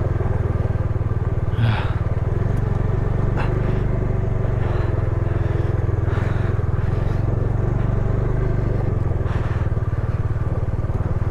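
Bajaj Dominar 250's single-cylinder engine running steadily under way as the motorcycle is ridden, with a few short rattles over rough road.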